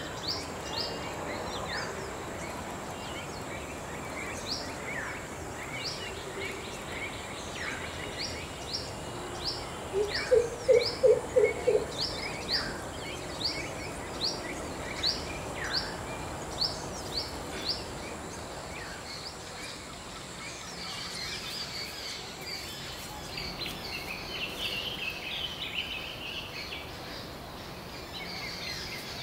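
Wild birds calling in woodland: a short, high, down-slurred note repeated about twice a second. About ten seconds in comes a loud run of four low hoots. A lighter chattering follows later on.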